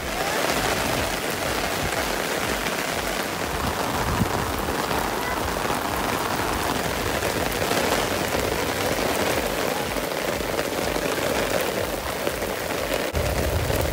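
Rain falling steadily, an even hiss of drops on the ground and surfaces, starting and stopping suddenly.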